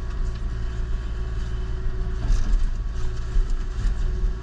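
Kubota KX040-4 mini excavator's diesel engine and hydraulics running steadily with its Indeco mulcher head attached: a constant low drone with a steady hum above it and a few short sharp cracks.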